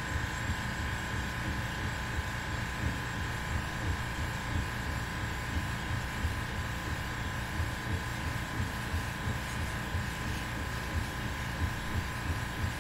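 Omtech CO2 laser engraver running a raster engraving job with air assist on: a steady machine hum with a constant whine, and rapid low knocks as the head shuttles back and forth.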